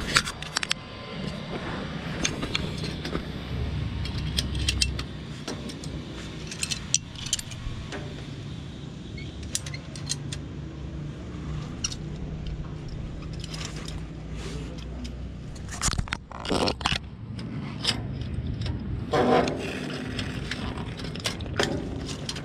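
Irregular clicks, knocks and scrapes of hands working on PVC water pipes and fittings at a booster pump, over a steady low background hum.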